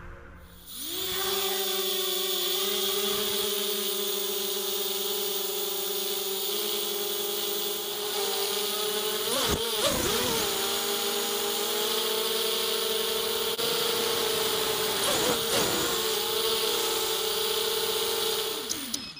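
Mini quadcopter's ZTW Black Widow 2204 2300kv brushless motors spinning HQProp 5045 bullnose props: a steady whine that starts about a second in, with brief pitch swoops about ten seconds in and again around fifteen seconds as the throttle changes.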